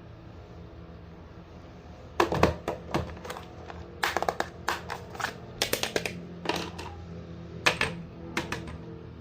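A steady low hum, then from about two seconds in, irregular bursts of sharp clicks and clacks from small hard objects, in clusters with short gaps between them.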